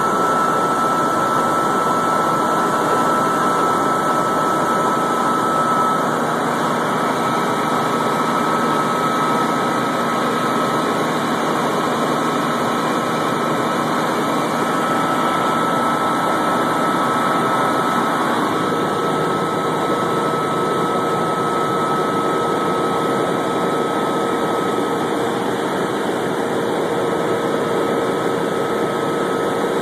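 Helicopter in flight heard from inside the cabin: a steady drone of engine and rotor noise with a steady high whine running through it.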